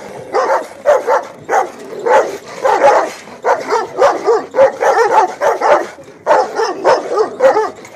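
Kangal-cross and Rottweiler dogs barking and yelping in quick runs of short, pitched calls, several a second, with a brief pause about six seconds in.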